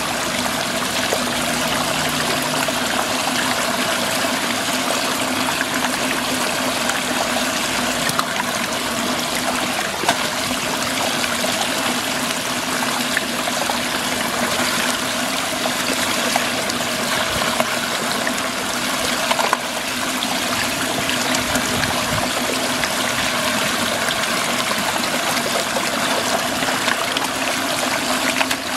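Muddy water swirling steadily and draining down a whirlpool vortex hole, with a steady hum underneath.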